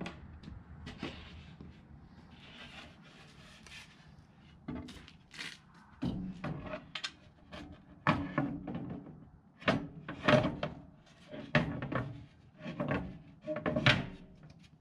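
Plywood shelf panels being handled and slid into a frame: scrapes, rubs and knocks of wood. They are sparse for the first few seconds, then come thick and fast.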